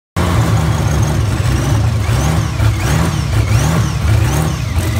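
Engine running on a display stand, its speed rising and falling over and over, a little more than once a second, with a whine that rises and falls along with it. The sound cuts in abruptly just after the start.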